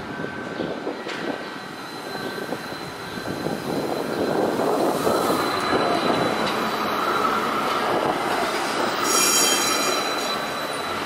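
Low-floor tram running over curved track and passing close by, its wheels squealing on the rails with a steady high tone. The running noise grows louder about four seconds in as it draws alongside, and a brief, shriller squeal comes near the end.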